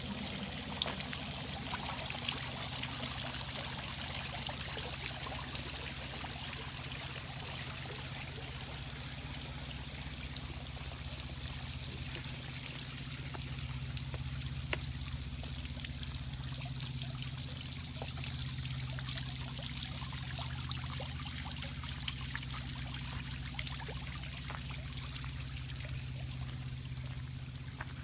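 Water from a garden water feature pouring and trickling steadily, with a low steady hum underneath.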